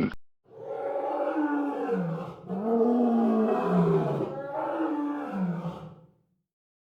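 Lion roaring in three long, low, drawn-out calls whose pitch sags and rises, starting about half a second in.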